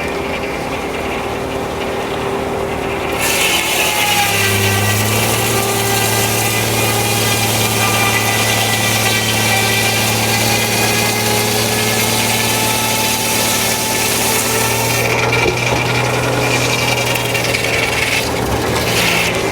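Frick No. 1 sawmill's circular blade cutting through a log, a loud hiss with a steady high ringing over the steady note of the power unit. The cut begins about three seconds in, and the engine note deepens under the load. It eases off near the end as the blade runs out of the log.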